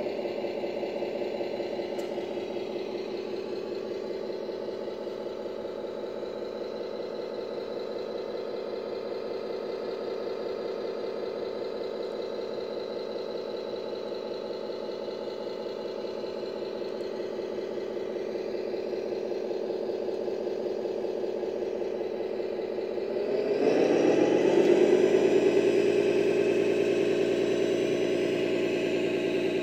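1/14-scale RC truck's electronic diesel-engine sound module idling steadily, then revving up about 23 seconds in and holding at the higher engine speed.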